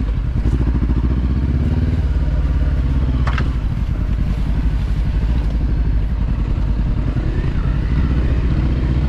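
Adventure motorcycle engine running steadily on a dirt trail, with one short sharp clack about three seconds in.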